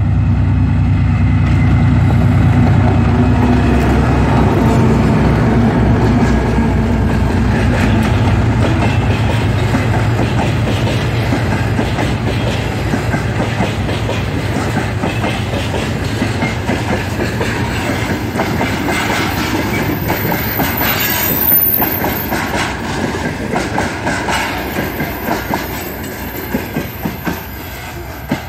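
2TE10L two-section diesel locomotive, with 10D100 two-stroke diesel engines, passing close by with its engines running loudly. Its train follows, wheels clicking rhythmically over the rail joints, with a thin high squeal in the later part, and the sound gradually fades as it moves off.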